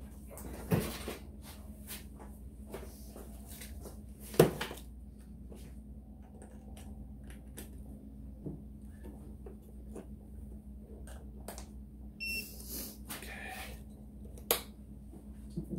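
Hands hooking up a jump starter to a motorcycle battery: scattered small clicks and handling knocks, three of them louder, over a faint steady hum. A short electronic beep comes about twelve seconds in.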